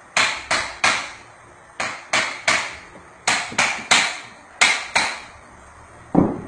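Sharp knocks of a hard stick striking, about a dozen of them, mostly in quick sets of three a third of a second apart, each with a short ring, as a folk bone-setter taps at a patient's leg. Near the end comes one duller, deeper thud.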